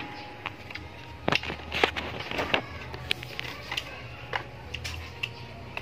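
Knife cutting into a mango on a plate: a run of short crisp clicks and cuts, loudest in a cluster about one to two and a half seconds in.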